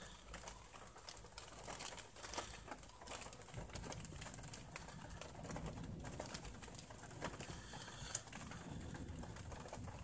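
Faint low rumble of distant thunder heard from inside a car, swelling in the middle, with scattered light ticks throughout.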